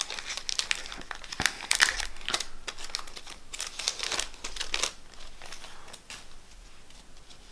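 Foil wrapper of a Pokémon card booster pack crinkling as it is torn open and handled, in irregular crisp crackles that thin out over the last couple of seconds.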